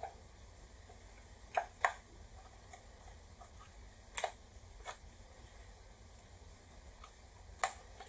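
Sharp clicks and snaps of a thin metal pry tool working at the seam of an Apple power adapter's plastic case, about six over the stretch, with a quick pair near two seconds in.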